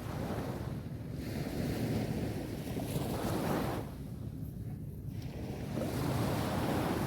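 Sea waves washing onto a beach, with wind buffeting the microphone. The wash swells and eases: it dies down about four seconds in and builds again near the end.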